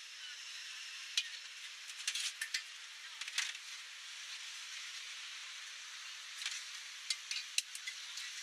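Food sizzling in a hot wok, a steady hiss, broken by sharp clinks of utensils against the metal several times.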